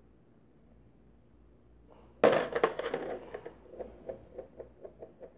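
Close handling noise from hands: a sudden burst of crackling rustle about two seconds in, then a run of light clicks, about four or five a second, that fades away.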